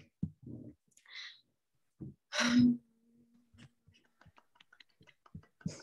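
A person's short, breathy exhale about two and a half seconds in, with a fainter hiss before it. Faint scattered clicks run through the second half.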